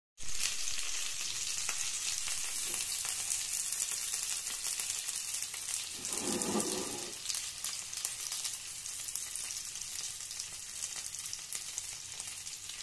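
Chicken shashlik skewers of chicken, onion and capsicum frying in shallow oil in a pan: a steady crackling sizzle, with a brief lower-pitched noise about halfway through.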